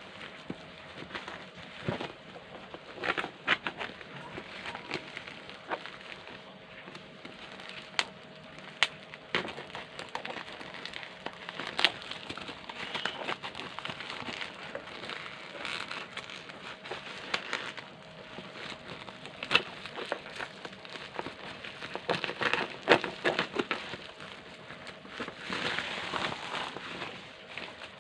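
Packaging being handled and opened: crinkling and rustling with irregular clicks and taps, in scattered bursts.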